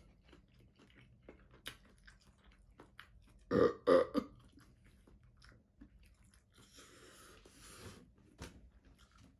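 A man chewing crispy fried chicken strips, with soft wet mouth clicks throughout. About three and a half seconds in he lets out two loud, short belches. Later comes a long breath blown out through pursed lips.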